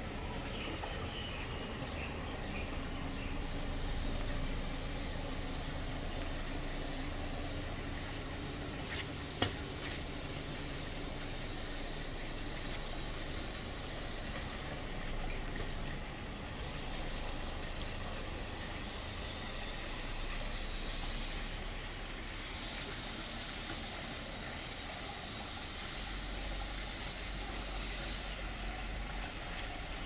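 Small three-tier rock waterfall splashing and trickling steadily into a koi pond. A single sharp click about nine seconds in.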